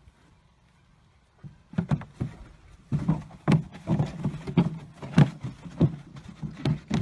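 Horse's hooves clip-clopping in a steady rhythm of about three strikes a second, starting about a second and a half in after a near-silent moment.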